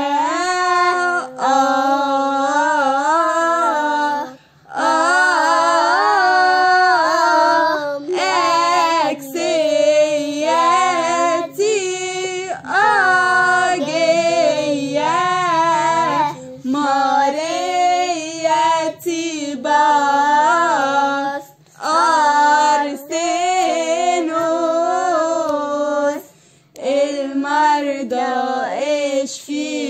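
Young female voices singing an Arabic Coptic madih, a praise hymn to the Virgin Mary. The melody winds and is heavily ornamented, sung in long phrases with a few short breaths between them.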